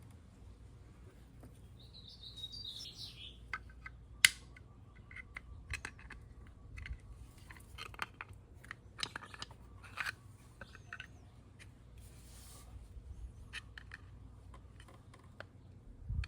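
Scattered light metallic clicks and clinks of hand tools and parts being handled during scooter brake work, one sharp click about four seconds in the loudest. A bird chirps briefly about two seconds in, and a short hiss comes near the twelve-second mark.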